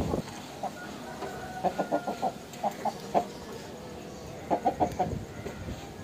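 Aseel game rooster clucking in quick runs of three or four short clucks, about three times.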